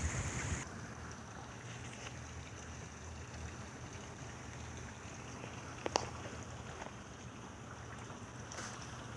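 Steady rain falling, with scattered drops ticking close by and a sharper pair of taps about six seconds in. The rain noise drops a little less than a second in.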